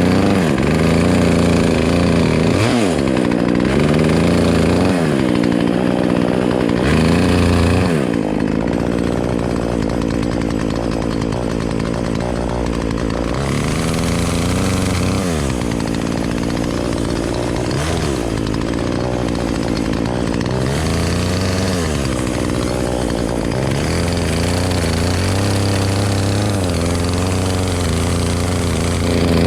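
Gas chainsaw engine running at speed, its pitch dipping sharply and climbing back again and again, as when the chain is working through wood.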